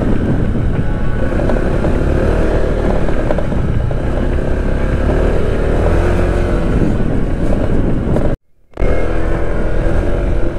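Honda ADV 160 scooter's single-cylinder engine running under way, its pitch rising and falling with the throttle. The sound cuts out for a moment about eight seconds in.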